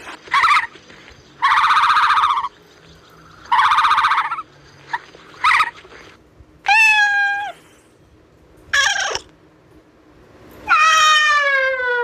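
Domestic cat meowing repeatedly: about seven separate calls of differing length, some short and rough, others drawn out and falling in pitch. The longest meow comes near the end.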